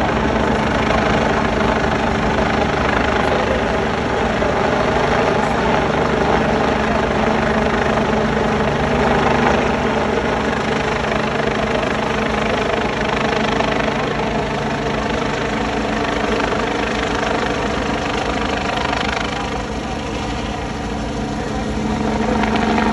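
Helicopter flying low overhead, its rotor and turbine running steadily; the sound dips a little near the end and swells back.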